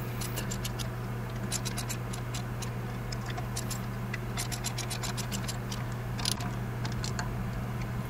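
Socket ratchet clicking in short runs as the ignition-coil bolts are snugged down, over a steady low hum.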